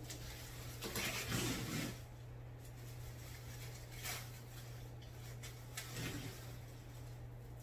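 Soft scuffing strokes of a foam sponge brush on canvas: a longer swish about a second in and shorter ones near four and six seconds, over a steady low hum.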